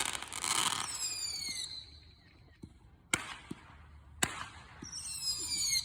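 Consumer fireworks going off: a hissing, crackling burst, then two sharp bangs a little over a second apart with a few smaller pops, and a high whistle near the end.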